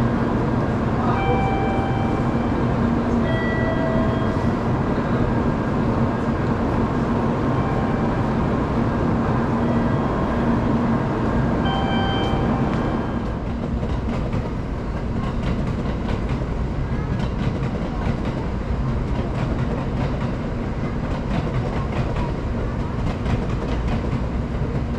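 Busy Shinkansen platform ambience: a standing bullet train's steady hum under a general din of the station. Short chime-like tones sound now and then in the first half. About halfway through it settles into a quieter, even rumble of rail traffic.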